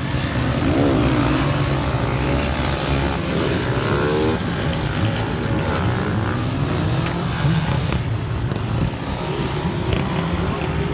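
Motor vehicle engines running: a steady low drone, with engine pitches rising and falling over it.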